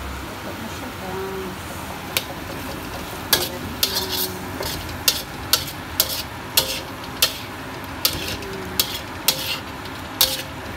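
Metal wok spatula scraping and knocking against a black steel wok while stir-frying meat and green peppers, over a steady sizzle. The sharp knocks begin about two seconds in and then come once or twice a second.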